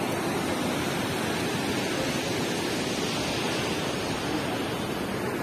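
Steady rush of river water pouring through the sluice gates of a weir.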